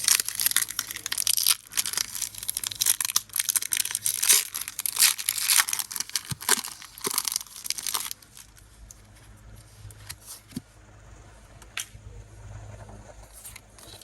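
Foil booster pack wrapper crinkling and tearing open for about eight seconds, then much quieter with a few faint clicks and rustles.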